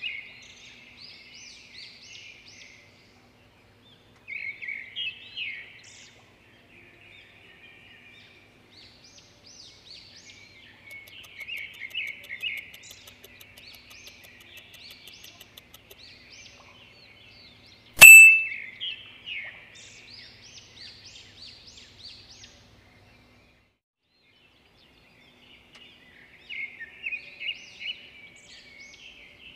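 Small birds chirping in quick, repeated bouts with short pauses between them. About 18 seconds in, a single loud, sharp ding rings briefly over them.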